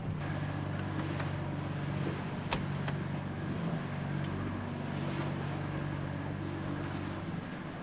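Sailing catamaran's engine running steadily under way, a low even drone. A few faint sharp clicks sound over it in the first few seconds.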